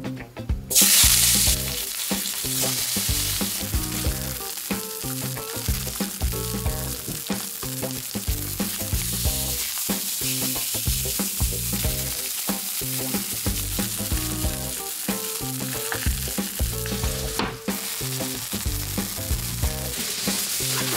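Sirloin steak searing in a hot stainless steel frying pan. It gives a loud sizzle that surges about a second in as the meat goes in, then keeps up steadily while the steak is turned with tongs.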